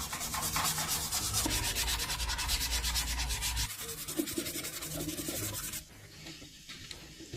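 Abrasive rubbing on a surface in rapid, even strokes, with a low hum underneath that stops a little past halfway; the rubbing cuts off near the end.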